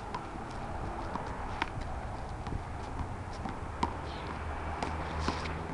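One-wall handball rally: irregular sharp smacks of a small rubber ball off the concrete wall and the asphalt, mixed with sneaker footsteps and scuffs. A low steady rumble comes in partway through.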